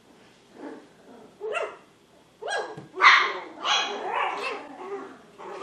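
Two seven-week-old poodle puppies barking as they play-fight. A few single high yips come first, then from about three seconds in a quick, loud run of puppy barks.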